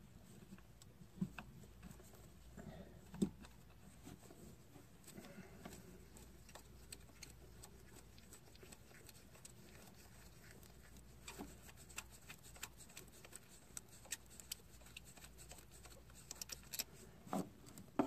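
Faint, scattered clicks and taps of a gloved hand working the plastic wiring connectors on the ignition coils, with a couple of sharper taps in the first few seconds.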